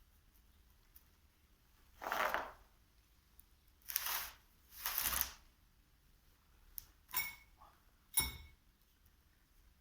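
Handling noises: three short scraping or rustling sounds, then two sharp metallic clinks with a brief ring, the second the louder.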